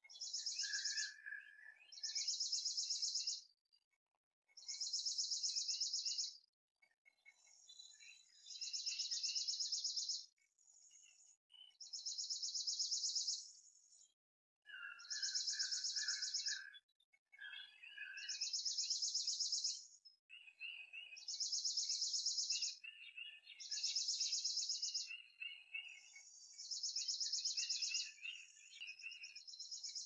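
Songbird singing: a high, rapid trill about a second long, repeated every two to three seconds, with lower chirps in between.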